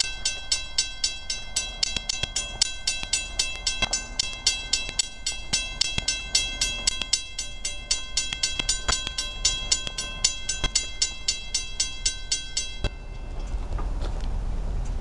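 Railroad grade-crossing warning bell ringing rapidly, about four or five strokes a second, with a sustained metallic ring; it cuts off about 13 seconds in, and a low rumble rises near the end.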